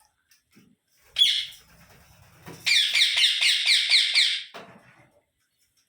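Rose-ringed (ringneck) parakeet calling: one sharp high call about a second in, then a quick run of about eight repeated high-pitched calls, each falling slightly in pitch.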